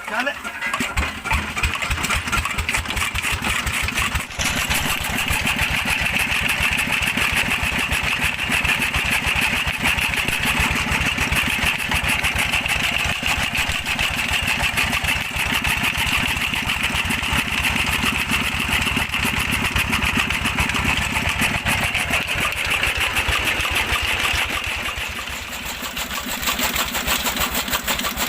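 Petter-type single-cylinder stationary diesel engine running fast and steady with rapid firing beats, driving a chaff cutter (toka). It comes up to full noise abruptly at the start and eases briefly a few seconds before the end.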